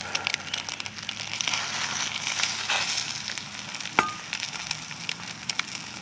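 Eggs frying in a skillet, a steady sizzle full of small crackles, as a spatula works in the pan. About four seconds in there is a single sharp click with a short ring, the spatula knocking against the pan.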